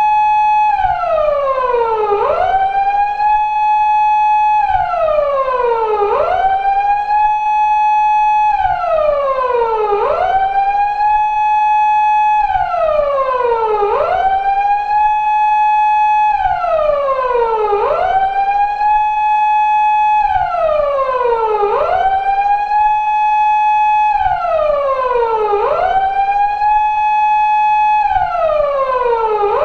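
Japanese police car siren of the 2000s type used on 170- and 180-series Toyota Crown patrol cars, wailing in a four-second cycle: a quick rise, a held high note, then a long slow fall, repeating steadily.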